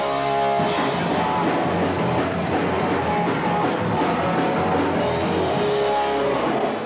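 Punk rock band playing live: distorted electric guitars, bass and drum kit at a fast, full-volume pace, dense and steady.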